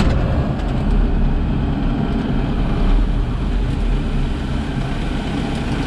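Farm tractor's diesel engine running steadily, heard from inside the cab.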